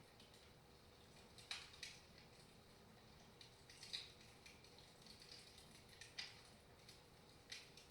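Wood fire crackling softly in a fireplace: faint scattered pops and snaps, a handful of sharper ones spread through.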